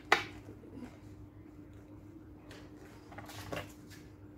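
Hand-handling of a bag panel and its hardware: one sharp click just after the start, then faint rustling of the material a few times. A low steady hum sits underneath.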